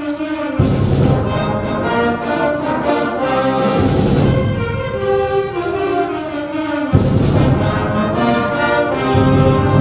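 A wind band playing held brass-led chords, with the low instruments coming in heavily about half a second in and again about seven seconds in.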